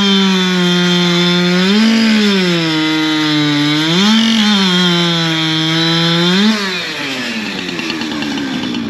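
Two-stroke race chainsaw running at high revs, its engine note swelling up in pitch three times. About two-thirds of the way through the note drops away and the sound gets quieter.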